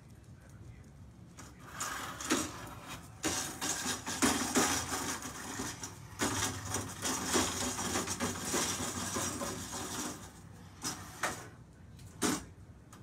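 Metal legs of a small plastic school chair scraping and skidding across a bare concrete floor as a dog pushes it along, in uneven stretches with knocks mixed in. A few sharp knocks of the chair legs come near the end.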